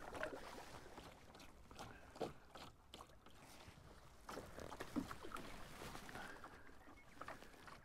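Faint water sounds of a single-blade canoe paddle stroking through calm lake water: soft splashes and drips every couple of seconds over a light hiss.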